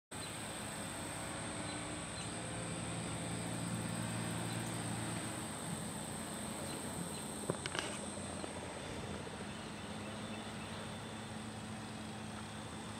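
A steady low mechanical hum that fades about five and a half seconds in, under a constant high thin whine. A few sharp clicks come together about seven and a half seconds in.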